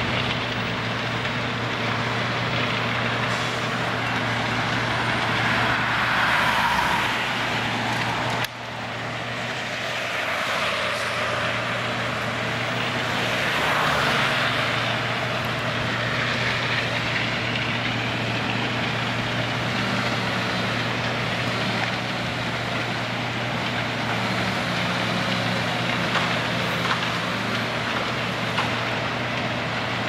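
John Deere 1470E forestry harvester's diesel engine running steadily under working load, with the machine's working noise swelling a couple of times as the crane and harvester head move. The level drops suddenly for a moment about eight and a half seconds in.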